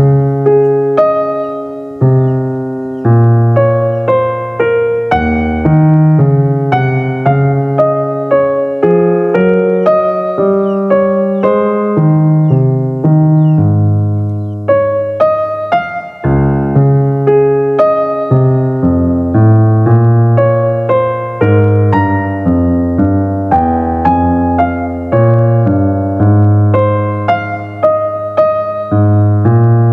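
Background music: a piano melody played as a continuous run of notes.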